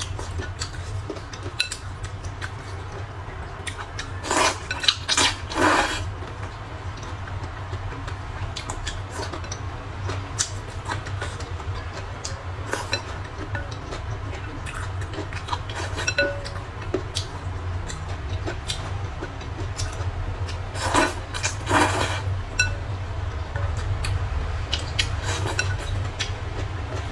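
Eating sounds from a bowl of spicy rice noodles: utensils clicking and clinking against the bowl, with two short clusters of louder slurps, a few seconds in and again past the middle. A steady low hum runs underneath.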